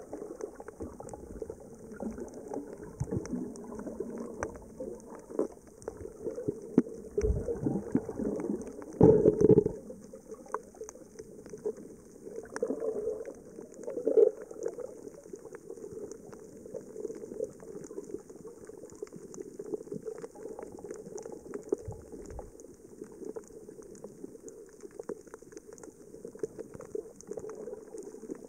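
Underwater sound on a coral reef, heard through the camera: a steady crackle of small clicks over a murky water hiss. Louder bubbling, gurgling bursts come about seven to ten seconds in and again around fourteen seconds.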